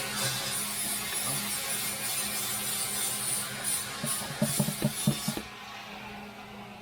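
Scraping and rubbing of hand work on the underside of an engine, with a quick run of clicks and knocks about four to five seconds in. The scraping stops suddenly before the end.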